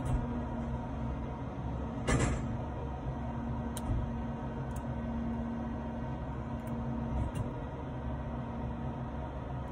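Steady low hum of a car heard inside the cabin, with a short sharp noise about two seconds in.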